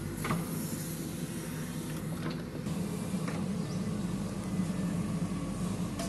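JCB 3DX backhoe loader's diesel engine running steadily while the backhoe arm and bucket work the soil, with a few short knocks from the arm about a third of a second, two seconds and three seconds in.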